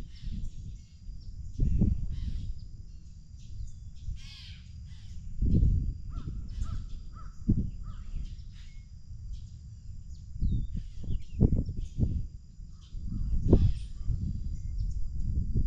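Wind buffeting the microphone in gusts, with birds calling over it: scattered calls, and a quick run of about four short notes some six seconds in. A faint steady high-pitched tone runs underneath.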